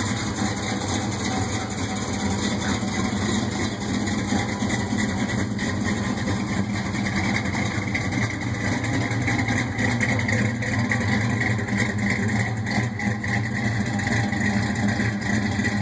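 1968 Plymouth Satellite's 400 big-block Mopar V8 with a Hughes Engines Whiplash cam, idling steadily through 1 7/8-inch headers and Flowmaster 50 Series mufflers.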